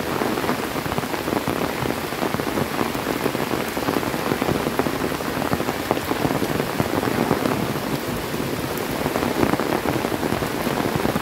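Heavy tropical downpour falling on foliage and a wet path: a dense, steady patter of raindrops.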